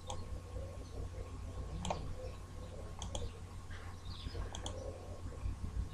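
Computer mouse clicking, a few scattered sharp clicks spread across several seconds, over a faint steady low hum.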